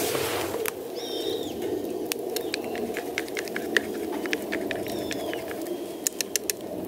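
A small bird chirping twice, short gliding calls, over a steady low rushing background scattered with quick sharp clicks and crackles.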